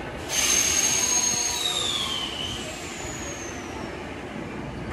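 A sudden loud hiss like a burst of released air, with high whistling tones that hold and then slide down in pitch, fading over about three seconds.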